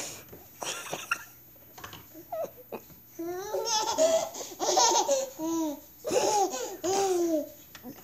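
Toddlers laughing and squealing in a string of short high-pitched bursts, starting about three seconds in, with a few brief scuffling sounds before.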